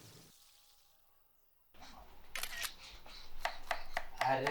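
After a second and a half of near silence, a run of sharp clicks or taps, about half a dozen over two seconds, over a faint hiss.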